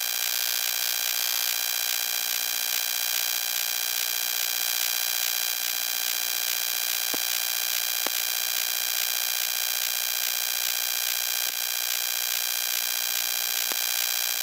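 A steady electronic buzz made of many fixed tones, cutting in and out abruptly and covering the room sound, with a few faint clicks in the middle.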